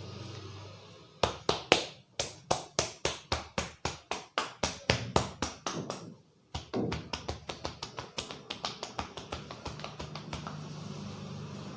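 Percussive head-massage strokes from a barber's hands: sharp, rhythmic slaps at about four a second, then after a brief pause a faster, lighter run of taps.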